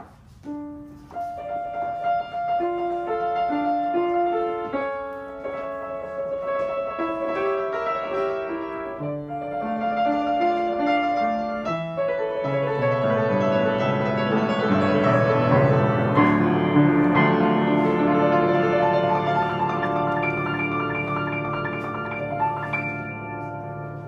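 Background piano music: a melody of single notes that grows fuller, with held low notes and chords, from about halfway through.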